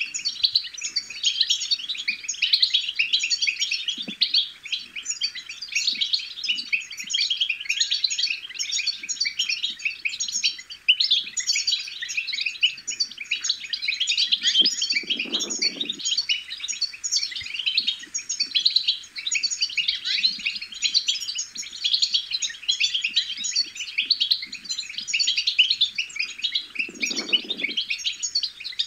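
European goldfinch twittering song: a dense, unbroken stream of quick high chirps and trills. Twice, about halfway through and near the end, a brief lower sound lies under it.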